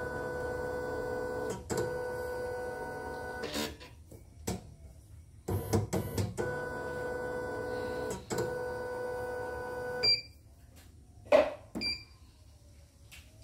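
Portable embroidery machine's motor running with a steady whine, in two stretches of a few seconds each. Near the end come short beeps from its control-panel buttons and a single knock.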